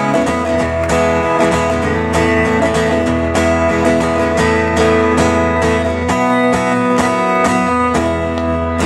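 Acoustic guitar strummed in a steady rhythm with ringing chords: the instrumental outro of a song after the last sung line.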